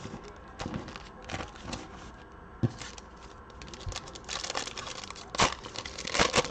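Foil wrapper of a Prizm basketball card pack crinkling and being torn open by hand, in short crackly bursts that are loudest near the end.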